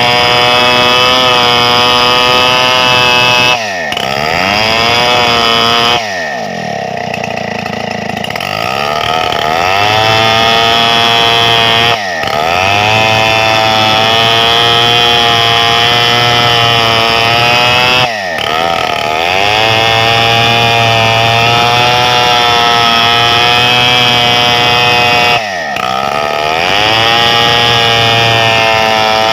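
Stihl 070 two-stroke chainsaw running at high revs while cutting gmelina timber. Four times the engine note drops sharply and then climbs back to full speed.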